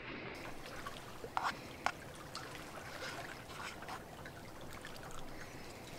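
Faint lapping of lake water, with a few light clicks and taps of a spoon against a cooking pot.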